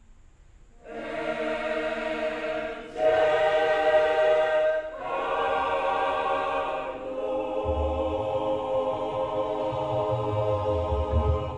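Mixed choir singing held chords in several long phrases, starting about a second in after a brief pause. A deep bass layer joins under the voices about two-thirds of the way through.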